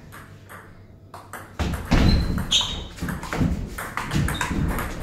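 Table tennis rally: the ball clicks off bats and table in quick succession. From about one and a half seconds in there are louder low thumps from the players moving, and a couple of short squeaks.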